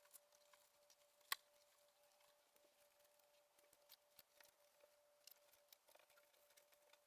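Faint small clicks and rustles of ribbons and their hangers being handled on a rack, with one sharper click about a second in, over a faint steady hum.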